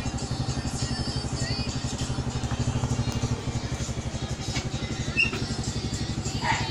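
Motorcycle engine idling steadily with an even, fast low pulse.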